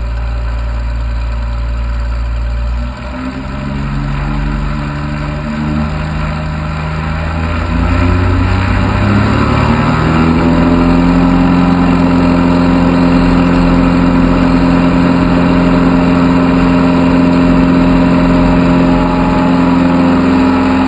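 Cessna 182's piston engine and propeller heard from a camera mounted on the aircraft: power comes up with the pitch rising over several seconds, then the engine runs steady at full power on the takeoff roll.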